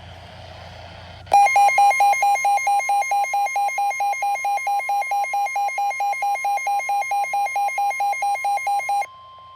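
Weather radio warning alert: a fast, even beeping, about four buzzy beeps a second, over the steady 1050 Hz NOAA Weather Radio warning alarm tone. It follows about a second of faint radio hiss and hum, and the beeping stops shortly before the end while the steady tone carries on.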